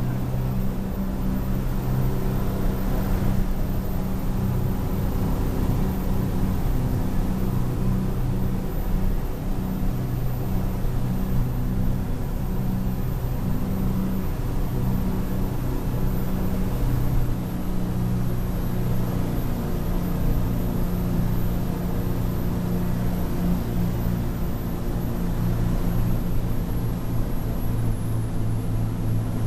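Yanmar 6LPA-STP inline-six turbocharged diesel inboard of a Pursuit 31 Offshore Express running steadily under way: a steady low drone, heard from inside the cabin and helm.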